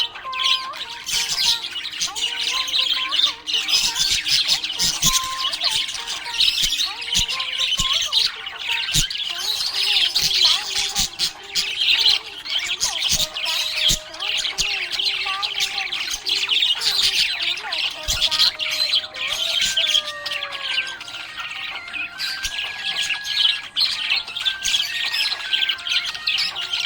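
Budgerigars chirping and chattering busily without a break, a dense stream of rapid high chirps and squawks.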